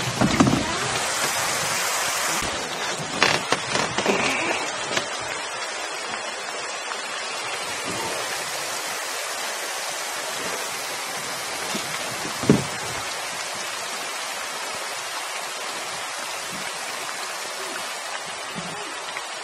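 Steady hiss of falling water on the river, with a few short knocks, the sharpest about twelve seconds in.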